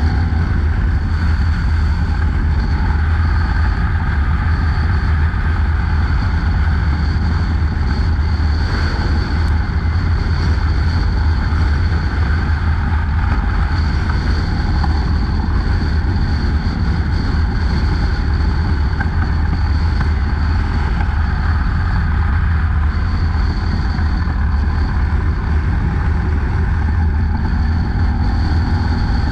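Harley-Davidson Dyna Low Rider S V-twin running at a steady cruise, heard from the rider's seat, its low rumble holding even with no revving or shifts.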